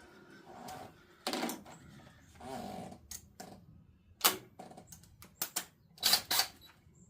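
Irregular metallic clicks, clunks and short scrapes of hand tools and parts being handled while a mower part is fitted back in, with the sharpest clacks about four seconds in and a cluster around six seconds.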